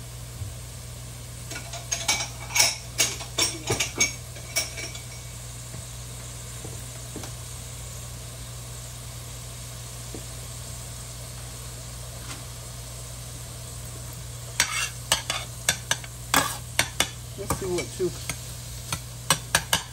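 Chopped mushrooms sizzling in oil in a stainless steel skillet, with a metal spoon clinking and scraping against the pan for a few seconds near the start. In the last five seconds the clinking starts again as mixed vegetables are tipped into the pan from a bowl.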